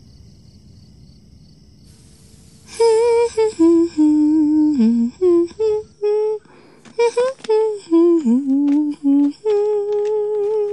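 Crickets chirping faintly in the night, then, from about three seconds in, a voice humming a tune in long, wavering notes.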